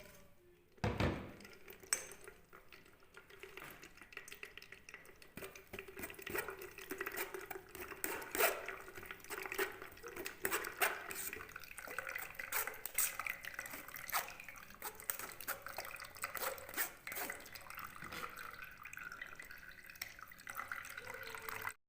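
Blended onion juice being strained through a sieve into a bowl: liquid trickling and dripping, with a knock about a second in and scattered clinks of utensils against the dish.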